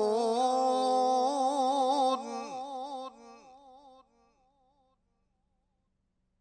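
A man reciting the Quran in melodic style, holding a long wavering note that breaks off about two seconds in. It fades out over the next two seconds through a trailing echo, then silence.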